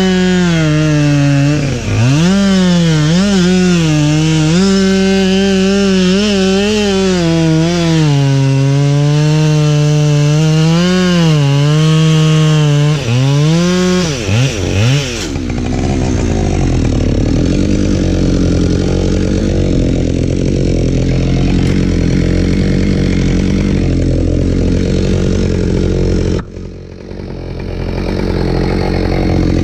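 Husqvarna 572XP two-stroke chainsaw running at high revs with its pitch wavering up and down, as when cutting firewood. About halfway through the high whine drops away, leaving a lower, steadier engine sound.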